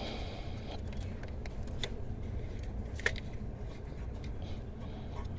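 Hands working a rubber boot back over the starter's battery-cable terminal: faint rubbing and handling noise with a couple of small clicks, over a steady low hum.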